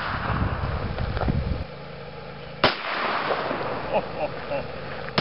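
A single gunshot about two and a half seconds in, a sharp crack followed by a brief echo, fired at water-filled plastic jug targets.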